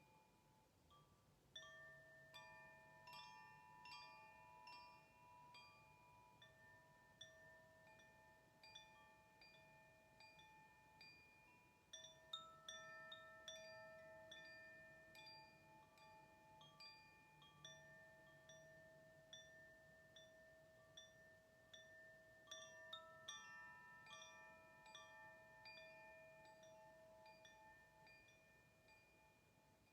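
Metal chimes ringing quietly: clusters of tinkling strikes on several pitches, each note left to ring on, coming in waves about every ten seconds.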